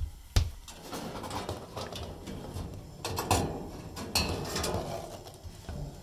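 Two sharp clicks, then uneven clattering and scraping of sheet metal on a gas wall furnace as it is handled, fading just before the end.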